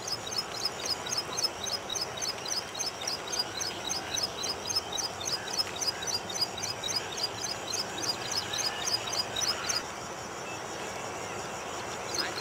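A rapid, even series of high chirps, about four or five a second, that stops abruptly near the end and starts again, over a faint steady hiss.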